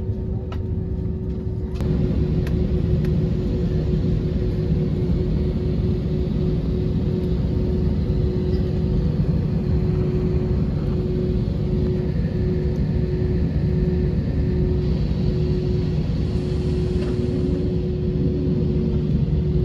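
Cabin noise of a jet airliner taxiing, heard from inside: a steady engine rumble with a constant hum over it. It grows louder about two seconds in and then holds steady.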